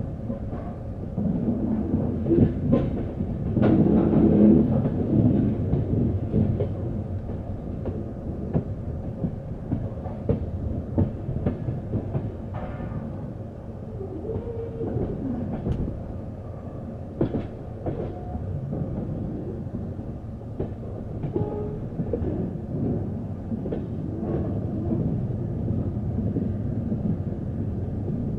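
Passenger train running on the rails, heard from on board: a steady low rumble of the coaches with irregular clacks of the wheels over rail joints.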